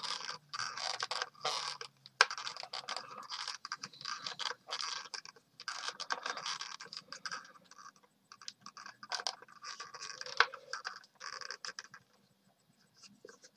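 A small screwdriver scraping and clicking as it turns a stiff screw in a plastic-and-metal die-cast model car, with the model rubbing in the hands. The sound is irregular, scratchy and clicking, and it stops about twelve seconds in.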